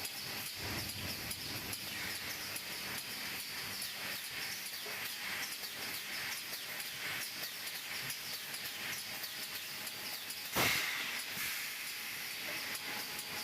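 E-TPU popcorn-sole moulding machine hissing steadily, with faint ticking, and a sudden loud burst of release about ten and a half seconds in.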